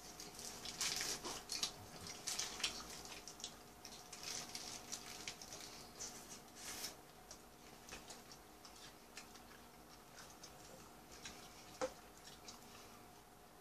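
Quiet close-up eating sounds of a hamburger being chewed: irregular wet mouth clicks and smacks with brief crinkles of the paper wrapper, busiest in the first half.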